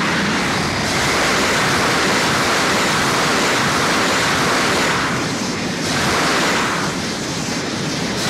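Loud, steady rushing whoosh, a sound effect from a pachinko machine's reach animation, dipping briefly about five seconds in and again about seven seconds in.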